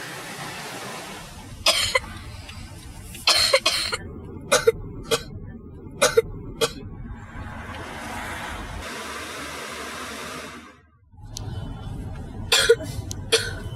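A young boy coughing over and over in short fits, about eight coughs with a long pause in the middle, over a steady hiss of car cabin noise.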